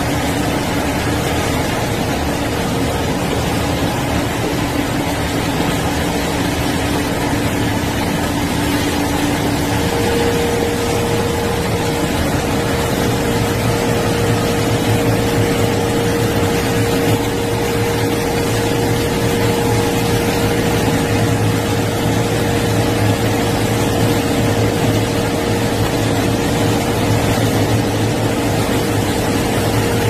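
Tracked diamond wire saw machine running steadily as it cuts through reinforced concrete, with a constant machine drone. Its steady whine steps up in pitch about a third of the way through, and a deeper hum joins soon after.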